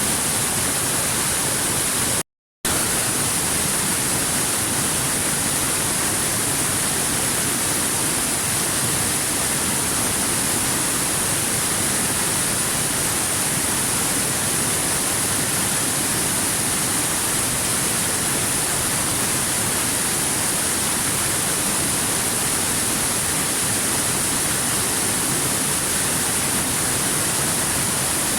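Steady rushing of a waterfall, an even, unchanging wash of water noise. About two and a half seconds in it drops out to total silence for a moment, then resumes as before.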